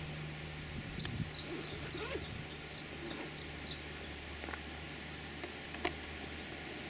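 A bird calling in a quick series of short, high, even notes, about four a second for some three seconds, over a steady low hum, with a couple of sharp clicks.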